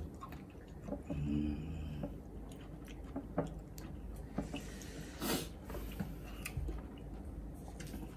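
Wet chewing and squishing of raw offal, with small mouth clicks, a brief hum about a second in, and a louder wet squelch a little past the middle.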